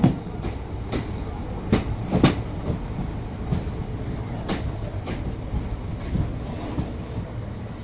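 Indian Railways train running, heard from on board: a steady rumble of the wheels on the track with sharp, irregular clacks as they cross rail joints, the loudest two about two seconds in and fewer later.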